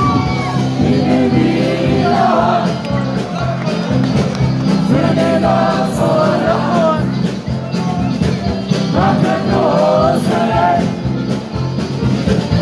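Live band playing loud amplified party music on drums, bass, guitar and keyboard, with sung phrases coming and going over it.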